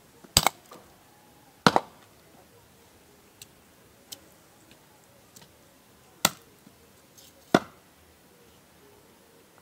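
Meat cleaver chopping pork on a wooden chopping block: four sharp chops in two pairs, with a few light knocks between them.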